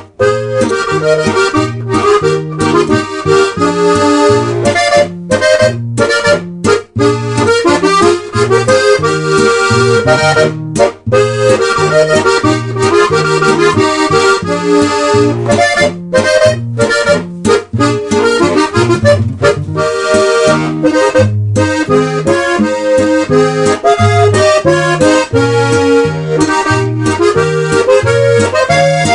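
Instrumental music: a sustained melody in chords over a bass that alternates note by note on a steady beat, cutting out briefly a few times.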